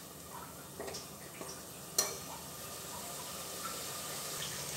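Tomato-and-spice masala sizzling in mustard oil in a pressure cooker as a steel slotted spoon stirs and scrapes it. There are a few light clicks of the spoon on the pan and one sharper knock about two seconds in. The sizzle grows slightly louder toward the end as the masala finishes frying and the oil separates from it.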